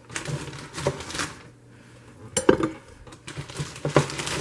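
Frozen chicken breasts being put into a slow cooker's crock: a string of hard clunks and clatters, the loudest about halfway through, with handling noise between them.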